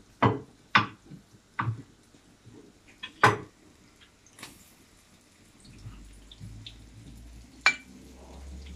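A handful of sharp, separate clinks and taps of a metal slotted spatula against a plate and a wok, the loudest about three seconds in. A low steady hum comes in about six seconds in.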